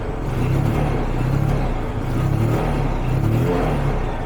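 Motorcycle engine running after its dirty carburettor was cleaned to cure hard starting, its note swelling and dipping slightly as the speed wavers.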